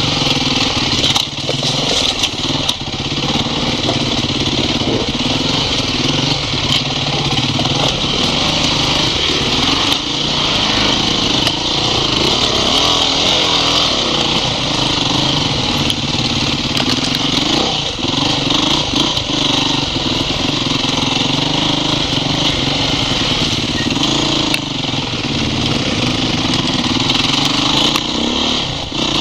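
Dirt bike engine running on the move over a rough trail, its pitch rising and falling with the throttle, with scattered short knocks.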